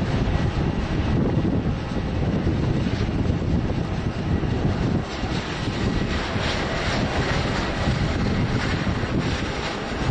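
Airbus A350's two Rolls-Royce Trent XWB jet engines running steadily as the airliner rolls down the runway, with wind buffeting the microphone.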